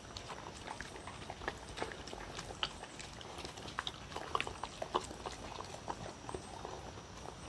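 A dog eating soft, wet food (egg and dried-pollock radish soup) from a wooden bowl: irregular wet chewing and lapping clicks, busiest about halfway through.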